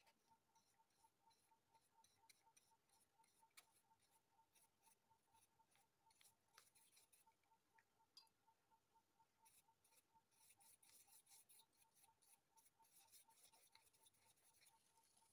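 Very faint, scratchy rubbing of a flat brush dragged back and forth across paper, spreading acrylic paint, thickest in the second half. A faint, quick, even ticking runs underneath.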